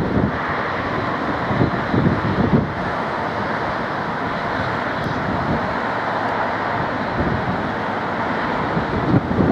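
Southern Class 377 Electrostar electric multiple unit running slowly over curved pointwork: a steady rumble with irregular wheel clunks over the crossings, and a low hum that comes in about six seconds in.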